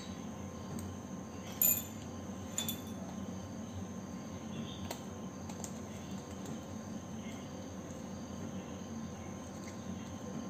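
Paper cutout being picked up and handled, with two short sharp paper crinkles or clicks about one and a half and two and a half seconds in and a few fainter ones later. Under them runs a steady background hiss with a thin high tone.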